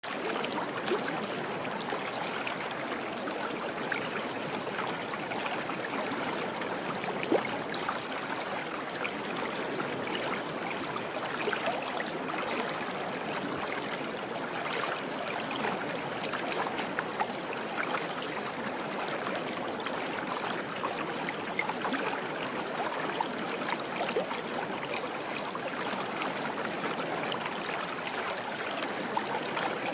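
Steady rush of flowing water, like a brook, with many tiny drips and ticks scattered through it.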